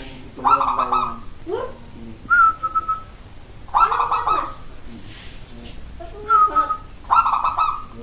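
Zebra dove (perkutut) singing its cooing song: phrases repeating about every three seconds, each a clear whistled note followed by a louder, rougher run of rapid notes.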